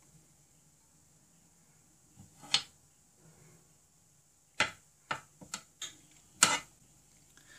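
Metal spoon clicking and scraping against a glass mixing bowl and a baking pan while dough is scooped and pressed into the pan's cups: one sharp click about two and a half seconds in, then a quick run of clicks between about four and a half and six and a half seconds in.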